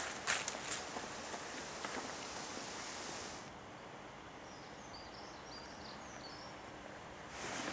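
Outdoor ambience: irregular crunching steps and rustling on dry leaves for the first few seconds, then, about three and a half seconds in, a quieter steady background with a few faint high bird chirps.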